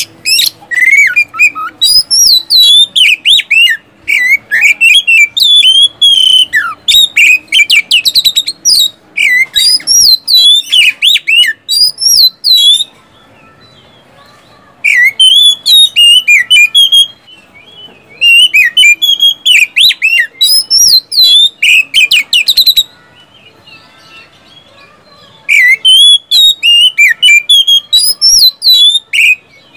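Oriental magpie-robin (kacer) singing loud bursts of rapid, sharp repeated notes and whistles, in four bouts broken by pauses of a second or two.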